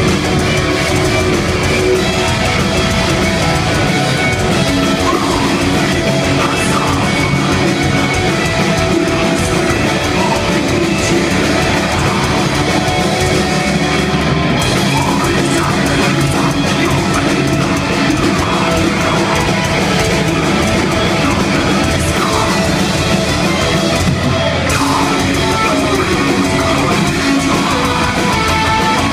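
Melodic death metal band playing live: heavily distorted electric guitars over a drum kit, loud and unbroken.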